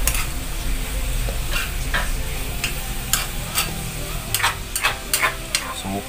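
A metal spatula scraping and clinking against a wok as sliced bitter gourd and carrots are stir-fried, over a steady sizzle of hot oil. The scrapes come irregularly, about every half second.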